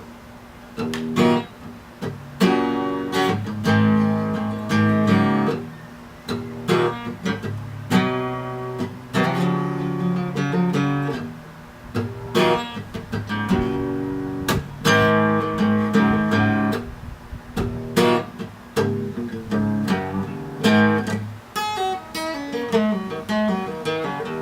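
Acoustic guitar playing, strummed and picked chords and notes.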